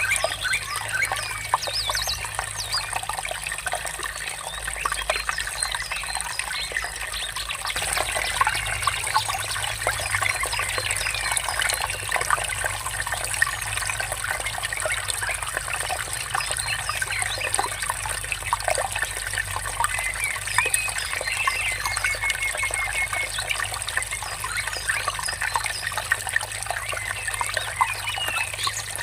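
Water trickling and babbling steadily, with small birds chirping and trilling on and off over it.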